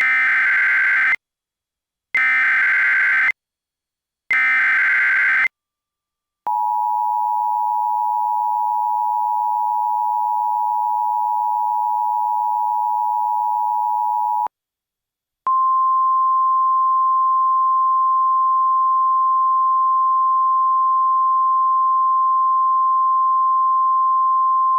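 Emergency Alert System signals for a tornado warning: three short bursts of the buzzing digital SAME header, then the two-tone EAS attention signal held steady for about eight seconds. After a brief gap comes a single steady NOAA Weather Radio warning tone.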